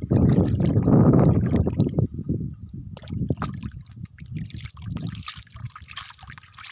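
Shallow muddy water lapping and trickling around a mud-loaded plastic toy dump truck, with a low rumble over the first two seconds. Near the end come crackling splashes as the water and mud around the truck are churned up.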